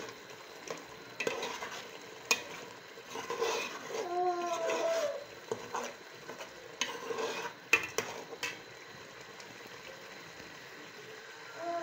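Metal spoon stirring a thick pepper and palm-oil soup in an aluminium pot, scraping and knocking sharply against the pot a few times, over a low sizzle of frying. A brief voice-like tone comes about four seconds in.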